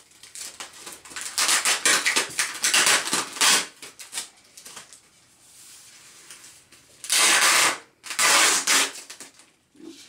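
Clear plastic air-column packing wrap crinkling and crackling as it is handled, while packing tape is pulled off it. Two louder tearing rips of under a second each come near the end.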